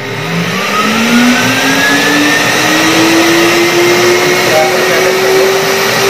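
Euroclean WDX2 wet-and-dry vacuum cleaner switched on, its motor spinning up with a rising whine over a growing rush of air, then running at full speed.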